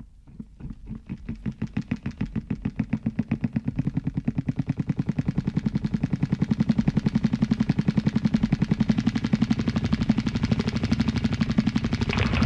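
A rapid, even pulsing drone, about eight beats a second at a steady low pitch, fades in from silence and grows steadily louder. Near the end a higher, brighter layer comes in over it.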